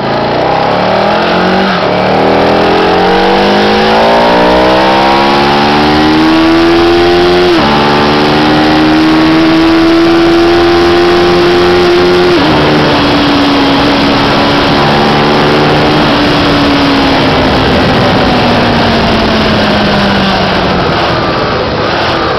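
Sport motorcycle engine accelerating hard through the gears from a standing pull-away. The pitch climbs, then drops sharply at three upshifts about 2, 7.5 and 12.5 seconds in. After the last shift it holds steady, then slowly falls as the throttle is eased off near the end, over a steady rush of wind noise at speed.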